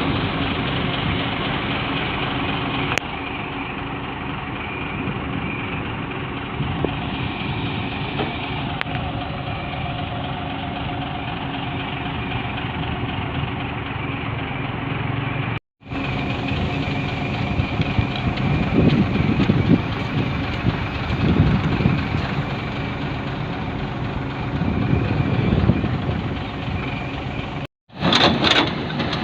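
Excavator's diesel engine running steadily, with louder uneven pulses in the later part.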